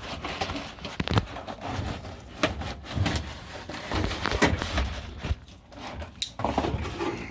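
Irregular knocks, clicks and rustling of items being handled and moved about, with a few duller thuds.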